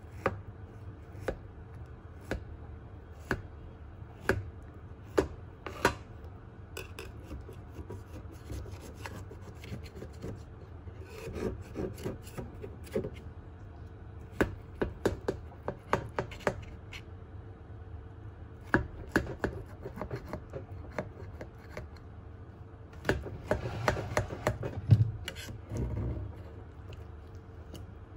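Kitchen utensils tapping and scraping on a hard surface: sharp knocks about once a second at first, then quicker irregular clusters of taps mixed with rubbing. A faint steady hum runs underneath.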